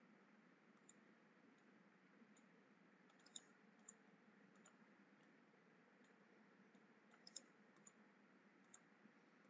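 Faint computer mouse clicks, about half a dozen scattered ones with a quick pair about seven seconds in, over near-silent room tone.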